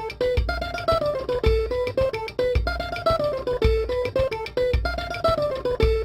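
Background music of plucked strings playing a short falling melody that repeats about once a second, over a regular low beat.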